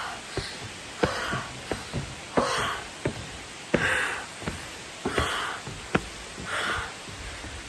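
A person breathing hard and rhythmically, a puff about every second and a half, out of breath and tiring on a climb, with short sharp knocks between the breaths.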